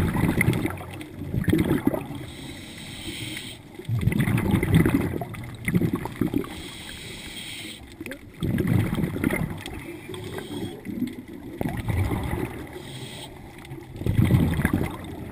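Scuba regulator breathing underwater: bursts of exhaled bubbles gurgling every few seconds, with quieter stretches between.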